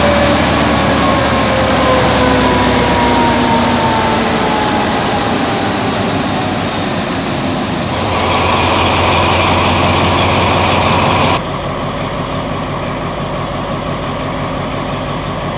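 Diesel-electric locomotive engine running close by, with a whine that falls slowly in pitch over the first few seconds, and a steady hiss joining about eight seconds in. The sound then changes abruptly to a second diesel locomotive, an Alsthom AHK hauling loaded stone wagons, running more quietly as it approaches.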